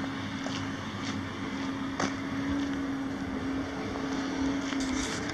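Caterpillar 3126 inline-six turbo diesel of a Sterling LT7500 dump truck idling steadily with an even hum, and a sharp click about two seconds in.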